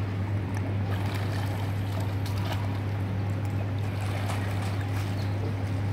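Water splashing and lapping from a swimmer's breaststroke strokes in a pool, over a steady low hum.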